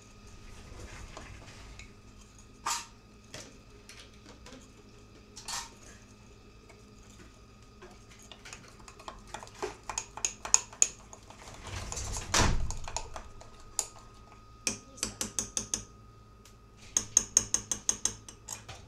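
A metal spoon clinking against the side of a dish while stirring cake batter, in quick runs of rapid taps, busiest near the end.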